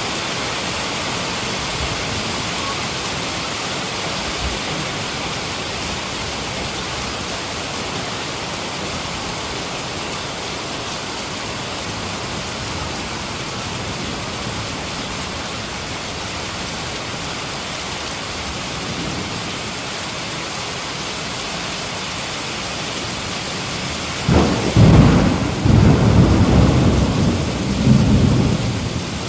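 Heavy rain falling steadily as an even hiss, with a loud rumble of thunder rolling in near the end and swelling and fading over several seconds.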